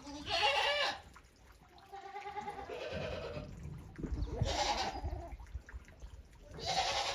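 Goats bleating, about four separate wavering calls spread across a few seconds.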